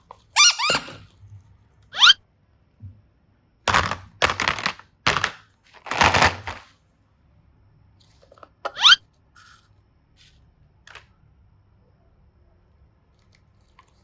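A few short squeaks that rise in pitch, one near the start, one about two seconds in and one about nine seconds in, with a cluster of short noisy bursts in between.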